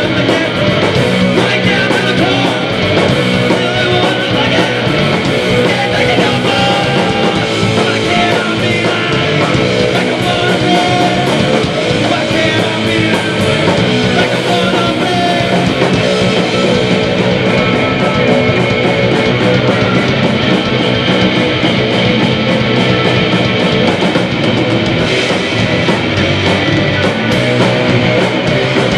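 Post-punk rock band playing live and loud, with distorted electric guitars, electric bass and a drum kit going without a break.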